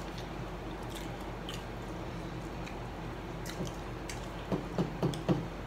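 Chewing and wet mouth sounds of people eating chicken nuggets, with scattered small clicks from handling the food and a few sharper knocks together near the end.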